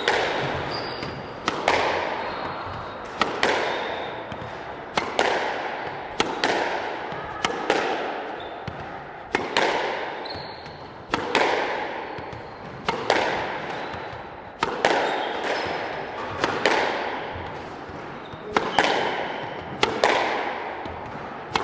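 Squash ball being driven again and again off the racket and front wall: sharp cracks about every two seconds, each ringing off in the court's echo. Brief squeaks of court shoes on the wooden floor come between the hits.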